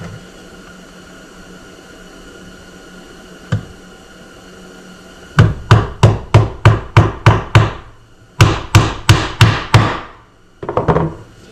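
Hammer driving a small nail into a rough-cut wooden board: one tap, then a quick run of about nine strikes at roughly four a second, a short pause, and about six more strikes.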